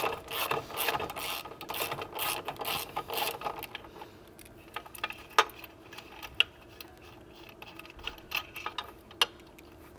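Hand ratchet clicking in quick strokes as a steering rack mounting bolt is backed out, for about the first three and a half seconds, then only a few scattered clicks and taps.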